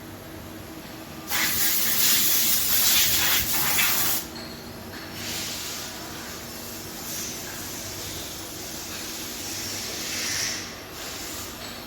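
Nakamura-Tome WT 150 CNC lathe running with a steady machine hum. A loud hiss starts about a second in and lasts about three seconds, followed by softer hissing swells.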